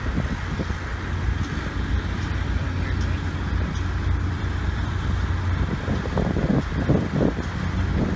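Drilling rig machinery running steadily: a constant low engine rumble under an even mechanical noise.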